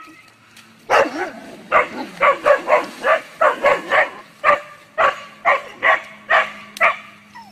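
Dog barking at a kangaroo, a rapid run of sharp barks, about three a second, starting about a second in.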